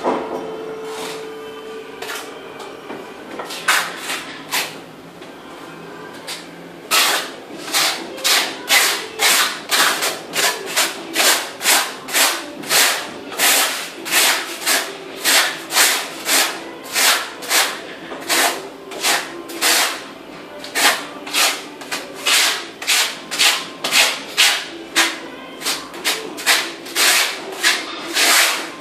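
Steel trowel scraping grey tile mortar across the back of a large porcelain floor tile, spreading it and then combing it into ridges with a notched trowel. A few strokes at first, then about seven seconds in a steady run of short scrapes, about two a second.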